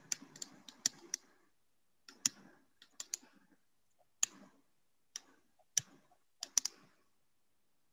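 Faint, irregular light clicks and taps, about fifteen, from handwriting a word with a digital pen on a computer.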